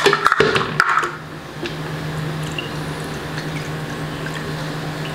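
Milk pouring from a carton into a plastic measuring cup, a soft liquid gurgle and splash, after a few handling clicks and knocks of the carton and cup in the first second. A steady low hum runs underneath.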